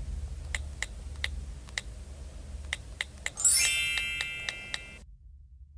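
Added end-card sound effects: a run of light, sharp ticks, then about three and a half seconds in a bright shimmering chime with a rising sweep that rings and fades out, over a low steady hum.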